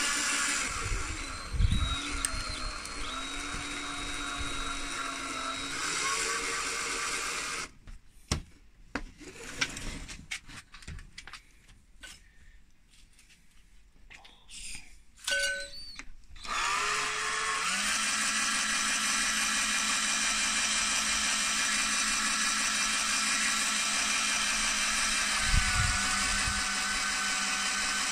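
Battery drill spinning a motor armature, with a hand file held against the copper commutator to skim off corrosion and carbon-brush tracks. It runs for about eight seconds, stops for several seconds of knocks and clicks, then spins up again and runs steadily.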